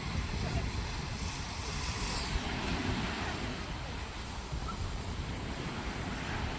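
Sea waves washing onto the shore, with a surge of surf hiss about two seconds in, while wind buffets the microphone.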